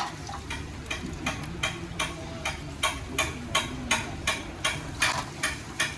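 Regular sharp metallic tapping, about three strikes a second, from tools at work on an Isuzu truck's manual gearbox.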